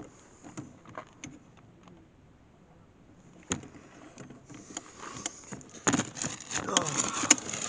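Rustling and knocking of a handheld camera being carried into a car as someone climbs in. There is a sharp click about three and a half seconds in, and the rustling grows louder in the second half with many small clicks.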